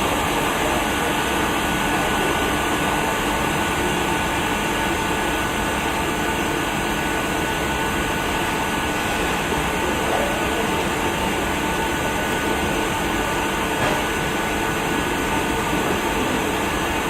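Steady whirring hum of an electric motor and fan, constant in level with a few faint steady tones, running without a break.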